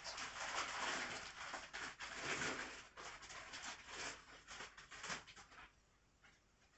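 Dry rustling and crackling close to the microphone, thinning out and stopping about five and a half seconds in.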